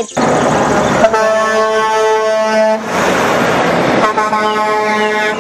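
Truck air horn blowing two long blasts, the first about a second in and the second starting near the end, over the steady noise of truck engines and traffic.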